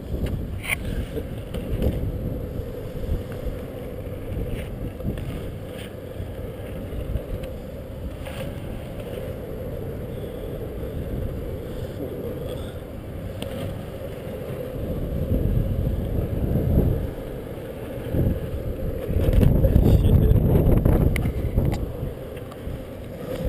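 Longboard wheels rolling on a concrete parking deck: a steady low rumble that grows louder twice in the second half as the board comes near, with a few sharp knocks.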